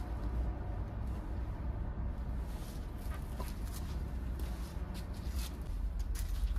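A few light footsteps in flip-flops and small handling taps over a steady low rumble.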